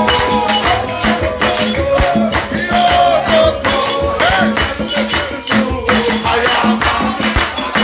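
Worship music with a steady percussive beat of quick, rattling strokes under a bending melody line.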